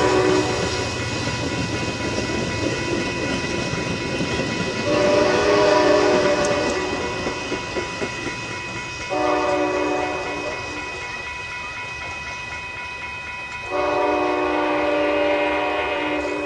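Locomotive horn sounding the grade-crossing pattern: the end of one long blast, then another long blast, a shorter one and a final long blast. Under the first half runs the rumble of a passing bilevel commuter train, which fades out about halfway through.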